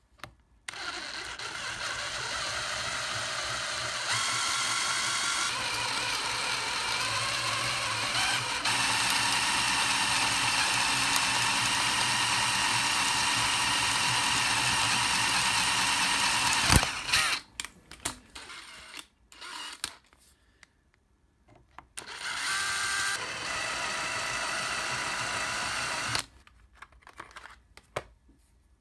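Hand-held power drill running a 4.2 mm bit into a metal gear's hub, drilling the tapping hole for an M5 thread. It runs in one long steady stretch whose speed changes a few times, with a sharp click near 17 seconds. A second, shorter run of about four seconds follows.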